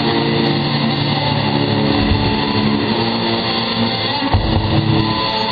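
Live rock band playing: electric guitars, bass and drums, with the low notes changing about two seconds in and again after about four seconds.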